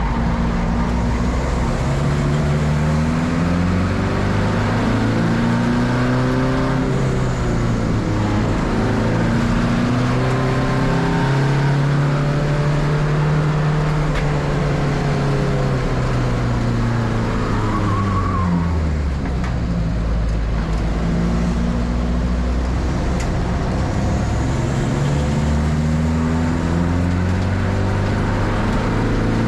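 Race car engine at full effort, its pitch climbing under acceleration and dropping off again several times, with a longer fall about two-thirds of the way through.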